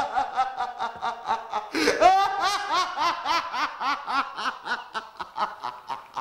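A man laughing uncontrollably: a fast run of pitched ha-ha bursts, with a fresh fit starting about two seconds in on a rising high note, then the bursts slowing and fading near the end.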